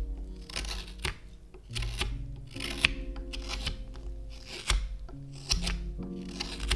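Knife cuts shaving a maple spoon blank: short slicing strokes, about one a second, over soft background music with held notes.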